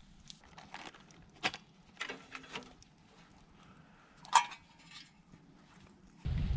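Scattered light clicks and knocks, with one sharper click about four seconds in; a steady low rush, like wind, starts suddenly just before the end.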